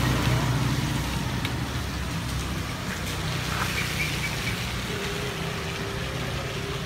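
Street traffic on a wet road: a steady low rumble of passing cars and motorbikes with an even hiss above it, a little louder in the first second or so.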